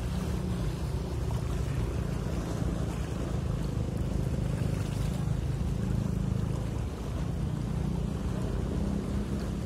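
Steady low ship's engine rumble mixed with wind buffeting the microphone and the wash of water.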